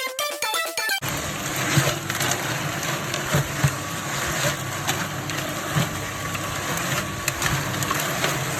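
A second of music, then a concrete mixer running steadily with a low motor hum, scattered knocks and clatter as the concrete mix tumbles in the drum.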